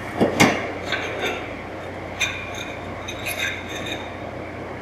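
Ceramic tiles clinking and clacking against each other as they are picked up and handled: two sharp clacks near the start, then a few lighter clicks.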